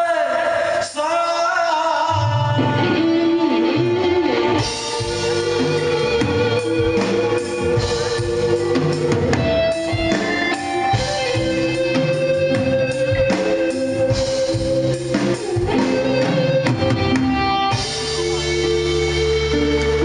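Male singer and live band performing a song, with electric guitars. A held note fades just after the start, and the full band with bass comes in about two seconds in.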